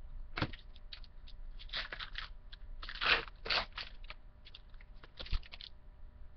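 Crinkling and tearing of a 2013 Bowman baseball card pack's wrapper as it is opened and handled, in a run of irregular rustles that is loudest about three seconds in.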